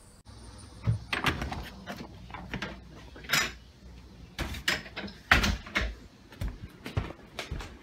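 Irregular knocks and thuds of someone walking indoors and handling a door, with rubbing from a handheld phone. The loudest knocks come about three seconds in and again past the middle.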